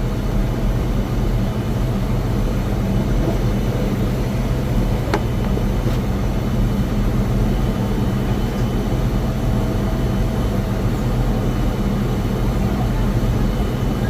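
Steady jet aircraft noise at the stand, a low hum with faint high whining tones, broken by a single sharp click about five seconds in.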